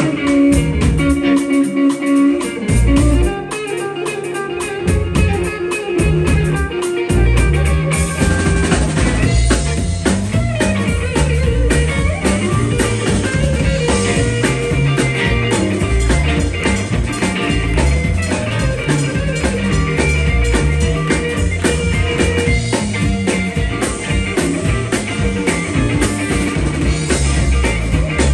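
Live blues-rock band playing on electric guitars, bass guitar and drum kit, with no singing. For about the first seven seconds the bass and drums hit in short stops with gaps between them; after that the whole band plays on steadily.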